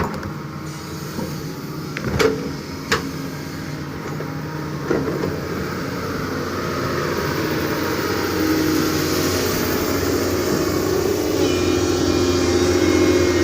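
Excavator's diesel engine running steadily under work, growing louder from about six seconds in, with two sharp metallic knocks a couple of seconds in.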